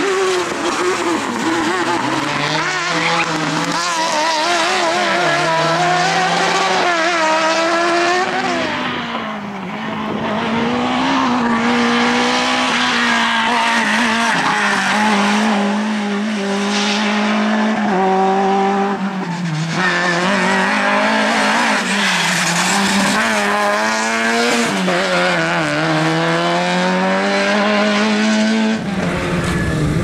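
Rally car engines revving hard, the pitch climbing and dropping again and again through gear changes and lifts, with tyre squeal as the cars slide through the turns.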